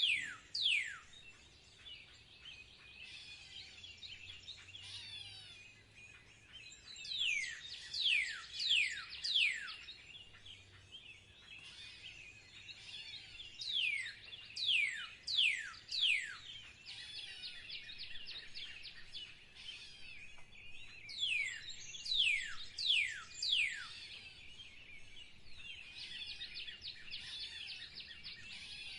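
A bird sings repeated series of five or six clear whistled notes, each sliding sharply down in pitch, about two notes a second. A new series starts every seven seconds or so. Throughout, a dense background of other birds' high chirping carries on in a spring bird chorus.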